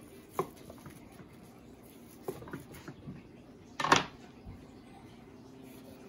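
A few faint knocks of a kitchen knife against a plastic cutting board as pressed mackerel sushi wrapped in plastic film is cut and handled, with one louder, brief handling noise about four seconds in.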